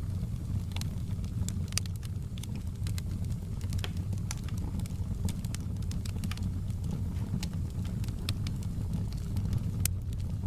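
Wood fire burning in a fireplace, with a steady low rumble and irregular sharp crackles and pops, several a second.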